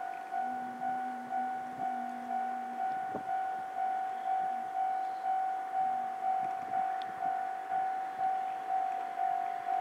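Japanese railway level-crossing alarm ringing, a steady repeating electronic bell tone at about two strikes a second, warning that a train is approaching.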